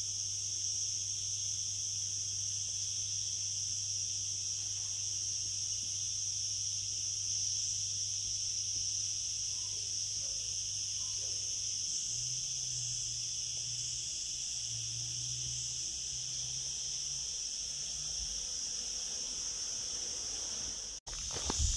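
A steady, high-pitched insect chorus, unbroken throughout, over a low steady hum.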